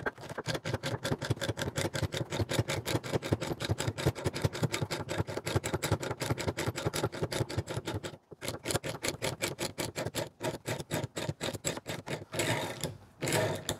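Ratchet turning the forcing screw of a gear puller, clicking rapidly and evenly, about ten clicks a second, with a short pause about eight seconds in. The puller is drawing the distributor drive gear and bearing off a VW crankshaft.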